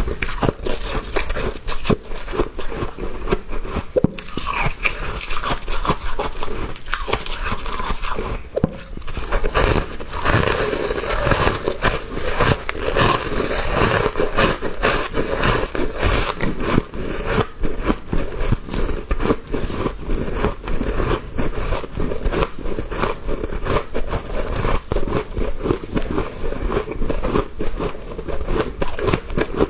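Close-up chewing and crunching of small, soft, powdery ice chunks: a dense, continuous run of crisp crunches, with only a couple of very brief pauses.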